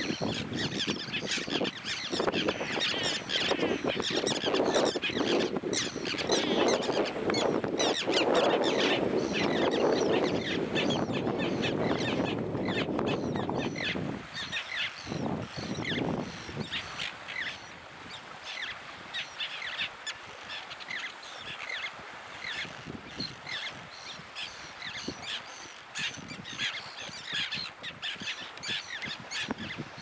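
A flock of terns calling, many short calls overlapping throughout. Under them a steady rushing noise runs for about the first half and then falls away.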